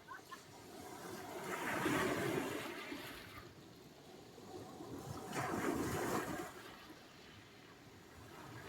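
Sea surf: waves washing in and drawing back. Two swells of surge rise and fall, the first peaking about two seconds in and the second about six seconds in.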